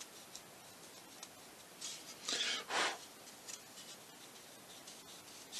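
Hinge-slotting blade rocking through balsa wood: three short scraping strokes close together about two seconds in, with a few faint ticks of handling.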